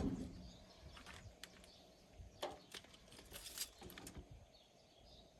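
Faint, scattered knocks and clicks, a few short taps spread through the middle, as lumber and tools are handled.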